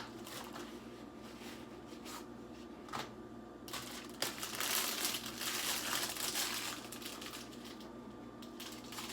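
Gloves being handled and pulled on: a few light knocks in the first few seconds, then crinkling and rustling from about four seconds in until near the end, over a faint steady hum.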